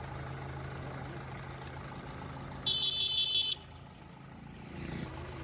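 Ashok Leyland truck's diesel engine idling with a steady low hum. Nearly three seconds in, a high-pitched electronic horn sounds once, pulsing, for under a second.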